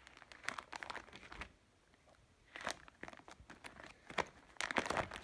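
Clear plastic sleeve pages of a card binder crinkling as they are handled and turned, in several short bursts of crackling, the loudest near the end.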